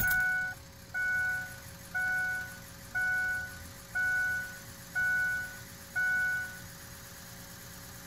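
Ford 6.0 Powerstroke truck's dashboard warning chime dinging about once a second at key-on, stopping about seven seconds in, over a faint steady hum.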